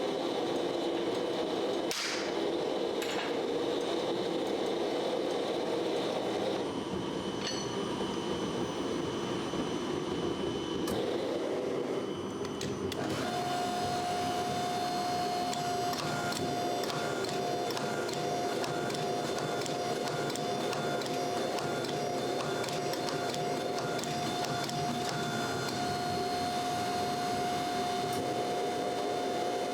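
A machine running steadily with a faint, even rhythm. About halfway through, a steady whining tone joins it.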